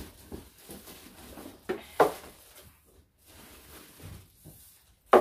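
Plastic-bagged hats rustling and crinkling as they are pulled out of a cardboard box and set down on a table, with a few short knocks of handling, the loudest near the end.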